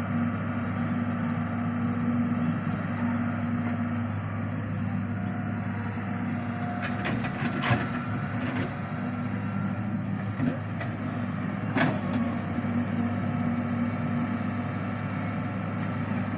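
Diesel engine of a Solar 130W wheeled excavator running steadily as it digs, swings and dumps soil into a tractor trolley. A few sharp knocks come through, the clearest about eight and twelve seconds in.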